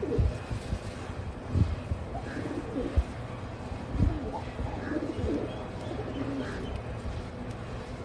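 Domestic pigeons cooing again and again in short low coos, with a few low thumps in between.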